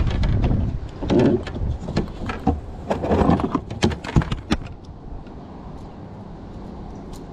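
Handling noise in a plastic kayak while a freshly caught bass and the fishing rod are held and moved: irregular clicks, knocks and rustles with gusts of wind rumble on the microphone, dying away about four and a half seconds in to a steady low hiss.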